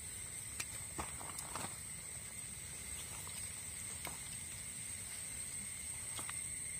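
Steady high-pitched insect chirring in the background, with a few faint clicks and taps as a kitchen knife cuts through raw chicken on a banana leaf.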